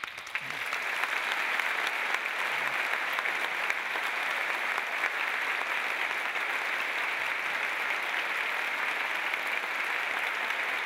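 A large seated audience applauding, building up over the first second and then holding steady.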